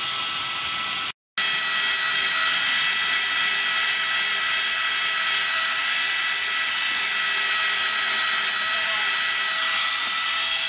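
Angle grinder with an abrasive disc grinding the steel of a leaf-spring axe head: a steady high whine over a hissing grind. The sound breaks off for a moment about a second in, then carries on unchanged.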